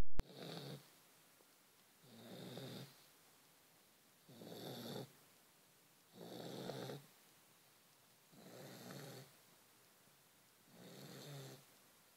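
A Vizsla dog snoring in its sleep: six snores, one about every two seconds, with quiet breaths between them. There is a short loud click at the very start.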